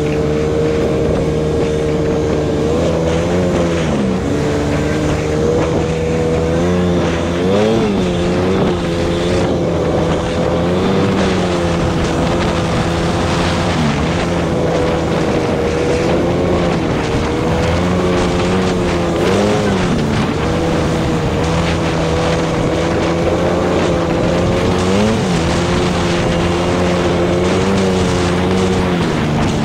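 ATV engine running steadily under throttle, heard from the rider's seat, its note dipping briefly and climbing back up several times as the throttle is eased and reapplied.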